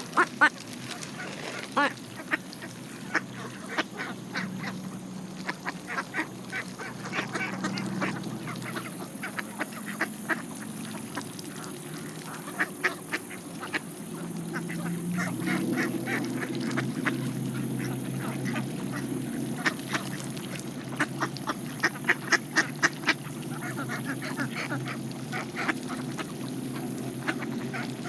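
Mallard ducks and Canada geese feeding on seed: a steady low chatter of soft quacks, with many quick clicks and pecks of bills coming in rapid runs.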